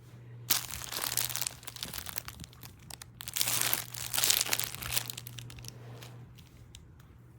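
Crinkling and rustling as a memory-foam travel pillow is handled, in two bursts, the second about a second after the first ends, fading out well before the end.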